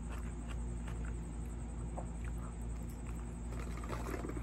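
Close-up chewing: faint, scattered wet mouth clicks as a man eats a burrito, with a denser cluster near the end as he bites into the flour tortilla. A steady low hum runs underneath.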